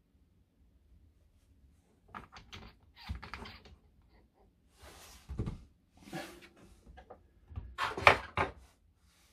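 Small model-truck parts handled at a workbench: scattered clicks, knocks and rustles that begin about two seconds in, with the loudest knock near the end.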